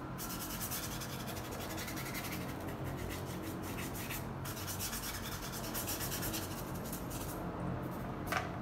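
Steady rasping noise of a machine running nearby, with a fine fast pulsing over a low hum. It thins briefly near the end, where there is a single click.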